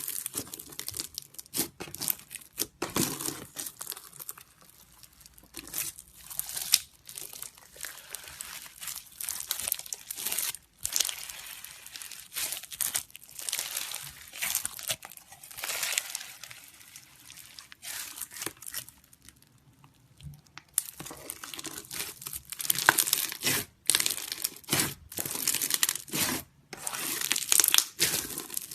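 Crunchy slime being poked with the fingers, giving irregular bursts of crackling and crunching, with a quieter stretch about two-thirds of the way through.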